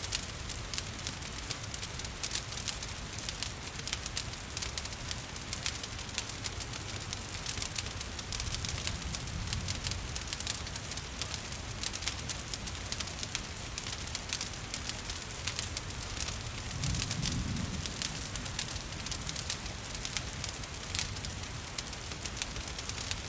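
Wood fire crackling with many small, irregular pops over a steady hiss of falling rain, with a brief low rumble about three-quarters of the way through.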